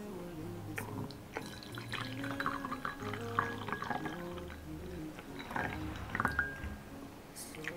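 Hot tea poured from a glass teapot in a thin stream into a porcelain mug, with background music playing.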